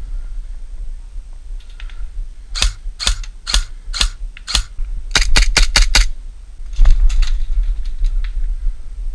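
Airsoft rifle firing: five single shots about two a second, then a quick string of six shots.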